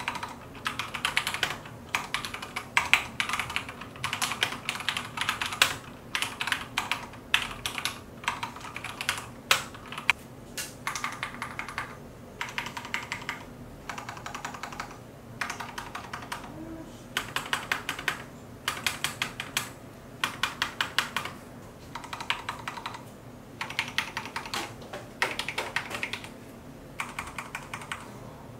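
Typing on a Thinkway CROAD C604 mechanical keyboard with Cherry MX Speed Silver linear switches and PBT keycaps: runs of fast keystrokes, each a second or two long, broken by short pauses.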